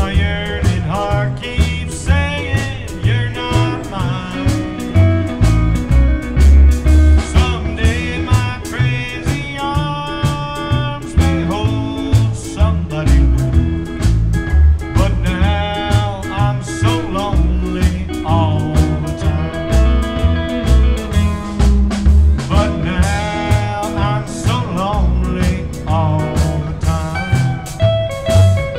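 Live rockabilly band playing a song with a steady beat, singing over guitar and drums.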